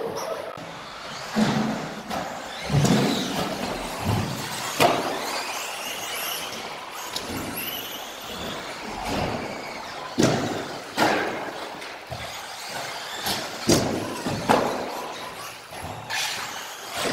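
Radio-controlled electric off-road buggies driving laps: motor whine rising and falling with the throttle, broken by repeated sharp thumps and knocks as the cars land jumps and hit the track.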